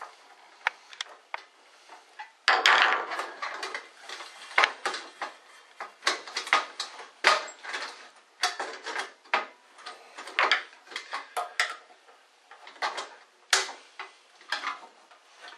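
A screwdriver working screws out of a metal high bay light fixture's housing: irregular metallic clicks, clinks and short scrapes of the tool and fixture parts, with a longer rattling scrape about two and a half seconds in.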